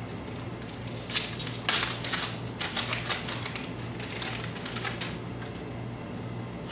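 Baseball cards being flipped rapidly by hand through a stack: a run of quick papery flicks and snaps, loudest and densest in the first half, over a faint steady hum.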